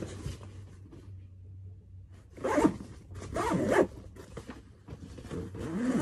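Backpack zipper being pulled open in several long strokes, the first about two seconds in and the last near the end.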